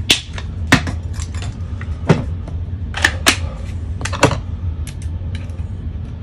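Clatter of hand tools being handled: a cordless angle grinder set down, a cordless drill picked up and a bit fitted to it, giving about half a dozen sharp knocks with lighter ticks between, over a steady low hum.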